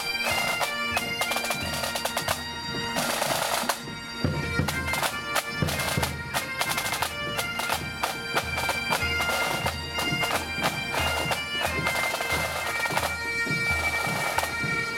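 Highland pipe band playing a march: several bagpipes with their steady drones under the chanter melody, with snare drums and a bass drum beating time.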